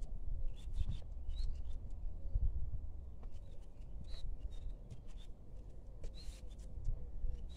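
Low rumble and light rustling, with a few faint short bird chirps scattered through.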